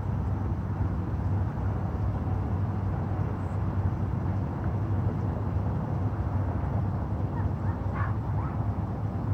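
Steady low outdoor rumble with no single clear source. About eight seconds in come a few short high-pitched sounds that rise and fall.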